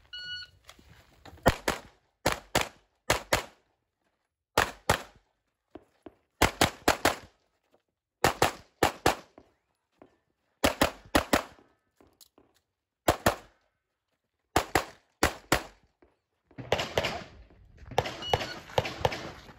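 A shot timer's start beep, then a CZ Shadow 2 pistol fired in quick pairs of shots, about a dozen groups with short gaps between them. A stretch of rushing noise comes near the end.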